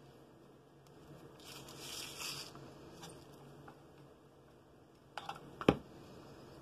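Craft handling noises at a work table: a brief scratchy paper rustle about one and a half seconds in, then a few light clicks and a single sharp knock near the end, like an object set down.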